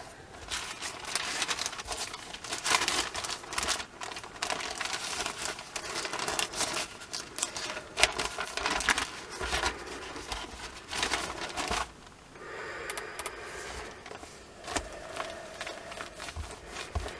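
Sheets of newspaper rustling and crinkling as they are handled and lifted apart. About twelve seconds in, this gives way to a softer, steadier sound of a clothes iron sliding over the paper.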